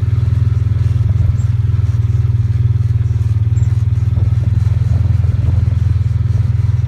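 John Deere Gator 625i side-by-side's engine running at a steady speed under way, a loud, even low drone with a rapid pulse and some rattle.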